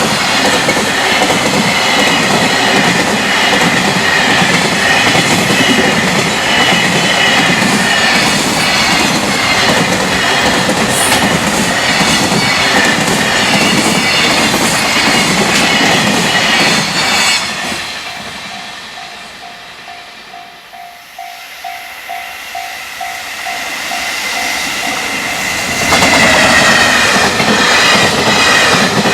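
A freight train passing at high speed, its wheels clattering steadily over the rail joints. About two-thirds of the way through the train noise fades away, leaving the level-crossing warning bell pulsing about three times a second. Near the end a train passes loudly again.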